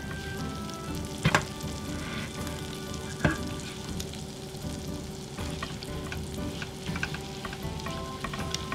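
Chopped garlic sizzling in butter in a nonstick frying pan over low heat, stirred with a spatula. Two sharp clacks of the spatula against the pan come about one and three seconds in.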